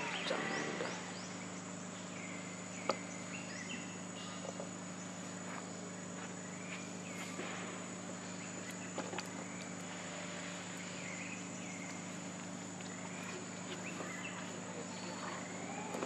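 Outdoor ambience dominated by a steady high-pitched insect drone, with a steady low hum underneath. Short chirps come and go throughout, and there is one sharp click about three seconds in.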